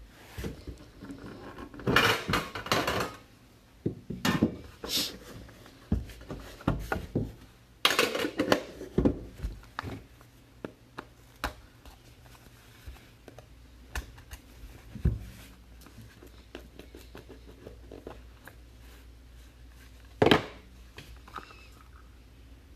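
Trading cards and their packaging being handled on a table while a box is opened: irregular clicks, taps and clatter, with bursts of rustling about two seconds in and again about eight seconds in, and a sharp knock near the end.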